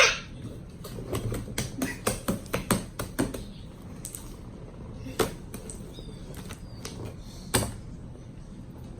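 Homemade slime being squeezed and pressed by hand, giving a quick irregular run of small clicking pops, then two louder single pops later on.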